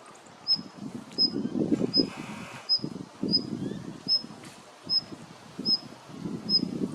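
Female Daurian redstart giving its call, a short thin high note repeated about ten times, roughly one every 0.7 s. Gusts of wind rumble on the microphone underneath.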